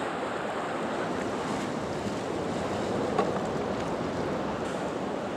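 Steady rush of moving river water, with a brief click about three seconds in.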